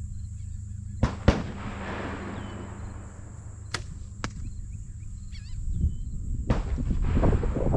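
A bow shot at a target: two sharp cracks about a quarter second apart, the second the louder, followed by a hiss that fades over about a second and a half. Two lighter clicks come around four seconds in, then footsteps swishing through grass near the end.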